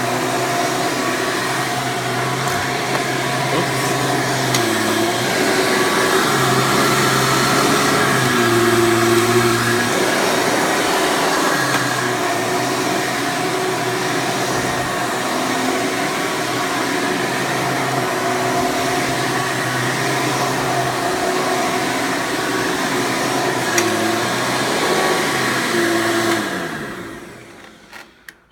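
Hoover Preferred U5093-940 upright vacuum's 12-amp direct-air motor running, pretty noisy, its pitch shifting a few times as the load changes. Near the end it is switched off and winds down.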